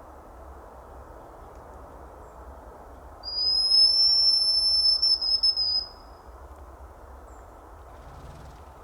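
A hazel grouse call: one long, thin, high whistle of about two and a half seconds, falling slightly and fluttering near its end.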